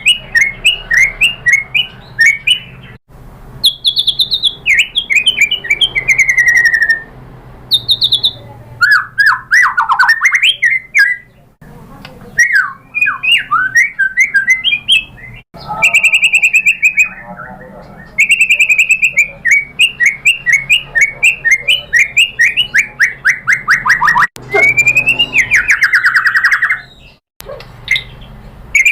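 White-rumped shama singing a fast, varied song: rapid runs of repeated notes, rising and falling whistles and harsh chattering phrases. The song cuts off abruptly a few times between phrases.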